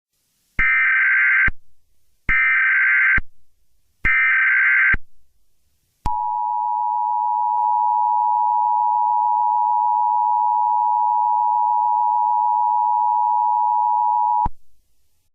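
Emergency Alert System tones: three short bursts of SAME header data, each about a second long and a second apart, then the two-tone attention signal (853 and 960 Hz) held steadily for about eight seconds before cutting off suddenly. This sequence announces that an emergency alert message follows.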